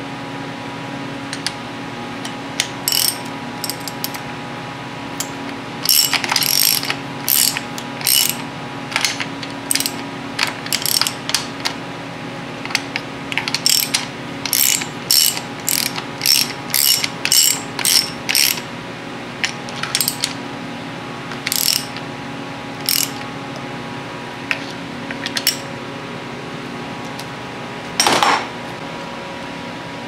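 Hand ratchet tightening the bolts of a mechanical fuel pump on an engine block, heard as short runs of quick pawl clicks separated by pauses. Near the end comes one louder, longer burst.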